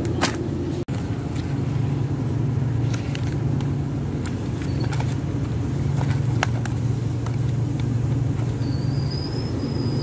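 Steady low hum and rumble of a supermarket floor, with scattered short clicks as plastic-wrapped cheese packs and the wire shopping cart are handled. The sound briefly cuts out just under a second in, and a faint high thin whistle appears near the end.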